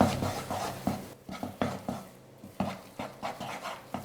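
Spoon stirring thick, sticky banana halwa in a kadai, with repeated short scraping, squelching strokes, two or three a second. The halwa has cooked down until it comes away from the pan.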